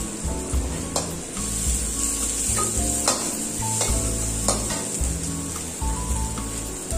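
Steel ladle stirring sliced onions frying in a wok, with a steady sizzle and a few sharp knocks and scrapes of the ladle against the pan.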